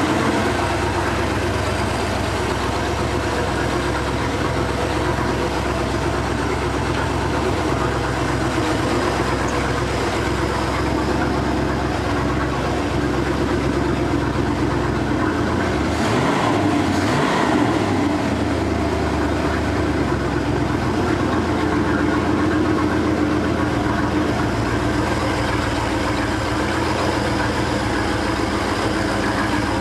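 Carburetted inboard boat engine idling steadily on its first start-up, its note changing briefly about halfway through.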